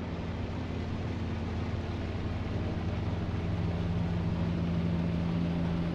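Engine of a lake tour boat cruising past: a steady low hum that grows a little louder toward the middle.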